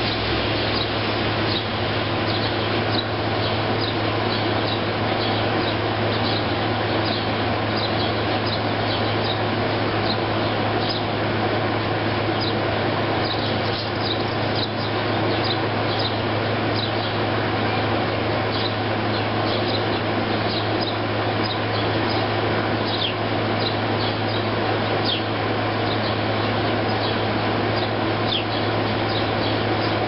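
A flock of sparrows chirping, many short high chirps, over the steady hum and rushing noise of an air conditioner.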